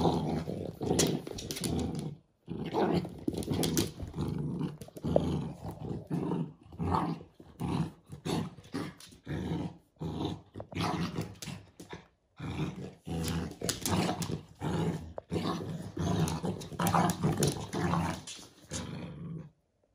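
American bully dogs, an adult and a puppy, growling in rough play as they tug and wrestle. The growling comes in irregular stretches, cut off abruptly a few times.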